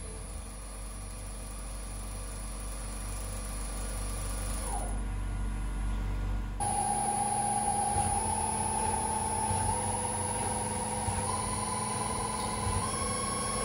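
CNC mill spindle motor turning a nylon workpiece in a scroll chuck. The spindle whine falls in pitch as it slows to a stop about five seconds in, then restarts about a second and a half later and steps up in pitch several times as the speed rises. Steady machine hum throughout.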